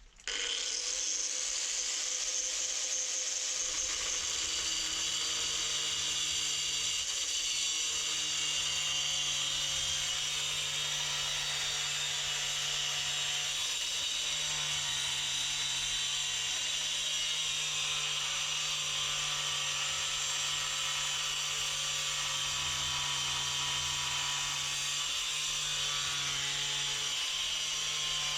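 Angle grinder starting up and cutting through a piece of metal, with a steady high-pitched grinding whine.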